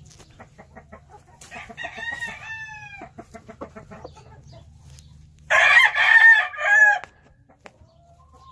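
A rooster crowing: a fainter crow about a second and a half in, then a loud crow lasting about a second and a half, starting about five and a half seconds in. Light scattered clicks come between them.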